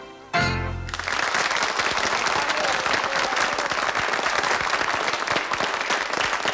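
The song's last held note ends about a second in, and an audience breaks into steady applause.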